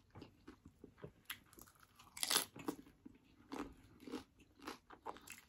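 Close-miked crunching and chewing of a crunchy beef taco's hard fried shell, with one loud crisp crunch about two seconds in and smaller crunches and mouth clicks around it.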